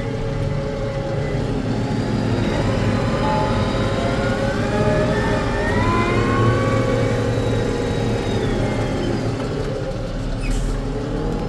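Fendt 724 tractor engine running steadily under load. A whine climbs in pitch about halfway through, then levels off and fades.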